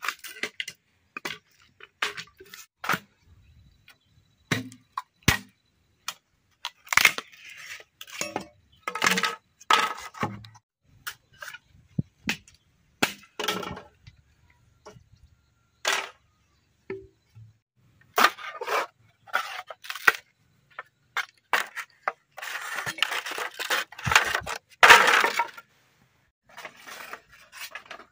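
Bamboo being chopped and split with a machete: an irregular string of sharp knocks and cracks, with a longer continuous stretch of splitting noise about three-quarters of the way through.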